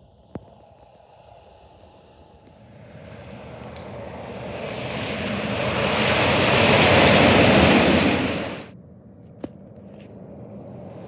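A semi truck pulling a tank trailer drives past on the highway. Its tyre and engine noise swells as it approaches, is loudest a little after the middle, then drops off sharply. Near the end the noise of the next truck begins to build.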